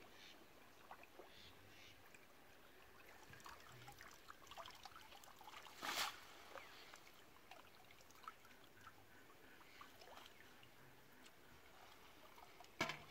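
Faint trickling and sloshing of shallow canal water as a bamboo-framed push net is worked through it and lifted, with a brief louder splash about halfway through and another near the end.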